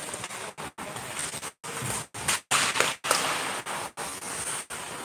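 Ice hockey play on the rink: a noisy wash of skates scraping the ice and sticks on the puck, louder for a moment between about two and three seconds in. The audio cuts out to silence briefly several times.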